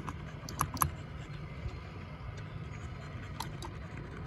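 Steady low rumble of wind and water around a small fishing boat, with light clicks and ticks scattered through it, a few sharper ones in the first second.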